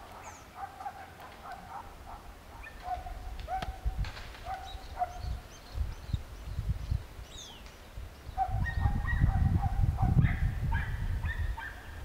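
Repeated short animal calls and thin falling whistles, with a few faint taps. From about eight and a half seconds in, the calls come thicker over a loud low rumble.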